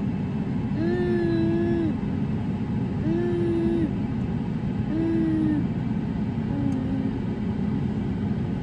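Steady low rumble of a car idling, heard from inside the cabin. Over it a soft hummed note repeats about every two seconds, each one a little lower and fainter than the last.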